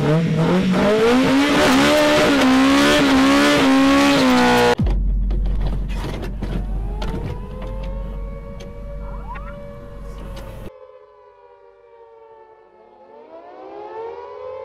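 A loud, noisy wavering wail for about five seconds, cut off abruptly. Then comes a deep rumble under an air-raid siren winding up and holding its pitch. It stops suddenly near eleven seconds, and a second siren wail winds up near the end.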